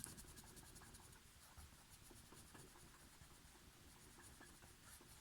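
Faint scratching of a colored pencil shading on paper, in many quick short strokes.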